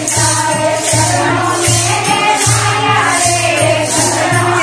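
A group of women singing a Marwari devotional bhajan in unison, with jingling hand percussion struck on a steady beat a little more than once a second.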